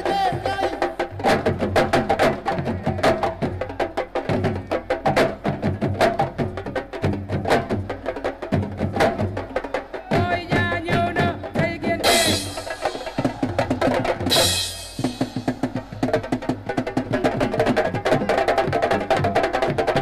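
Senegalese sabar drums playing a fast, dense rhythm, with a pitched melodic line over the strokes. Two short, loud hissing bursts come about twelve and fourteen and a half seconds in.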